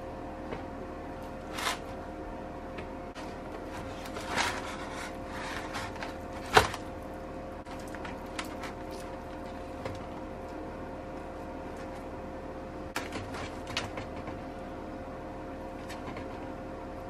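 Knife and hands working food out of a styrofoam takeout container: scattered scrapes, taps and knocks on the foam and counter, the sharpest about six and a half seconds in, over a steady background hum.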